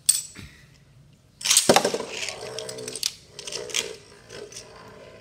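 Beyblade Burst spinning tops, Ragnaruk and Valtryek, launched into a clear plastic stadium about a second and a half in. They whirr and clatter as they spin, with sharp clacks as they strike each other and the stadium walls.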